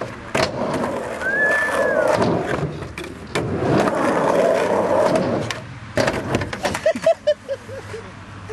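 Skateboard wheels rolling over the park surface, broken by sharp clacks of the board popping and landing on the obstacles. The rolling stops about five and a half seconds in, leaving a few scattered clacks.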